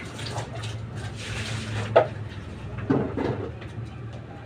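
Hard knocks and scraping of a household object, likely the washing machine, being handled, with two sharp knocks about two and three seconds in over a steady low hum.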